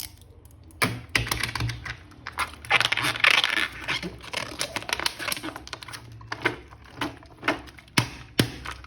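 Plastic toy packaging being handled and opened: a run of sharp plastic clicks and taps, with a stretch of rustling and crinkling from about one to four seconds in.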